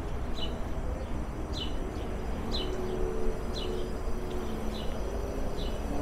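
A short, high chirp that falls in pitch, repeated at an even pace about once a second, over a steady low rumble of city traffic.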